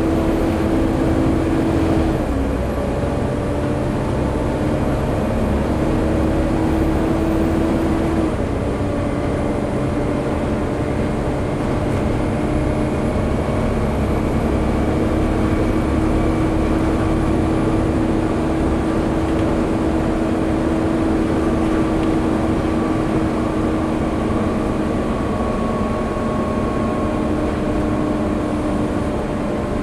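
Volvo B7TL bus's engine cooling fan roaring over the seven-litre six-cylinder diesel as the bus is driven hard, heard from inside the bus. Its steady whine drops out and comes back at a new pitch a few times, following the engine revs through the gear changes.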